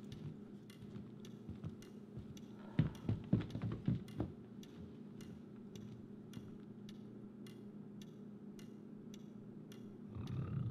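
A clock ticking about twice a second over a steady low hum. A few louder knocks come about three to four seconds in, and a louder low swell begins near the end.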